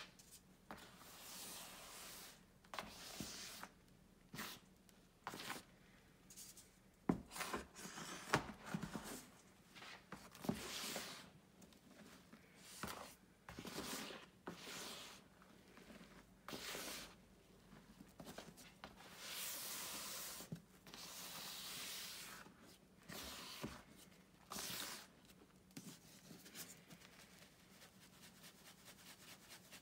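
Powdery gym chalk scooped by hand and dropped into a metal mesh sieve: a series of soft hissing, crumbling rushes, each lasting about a second, with a few sharp clicks about a quarter of the way in. Near the end, a faint quick even ticking.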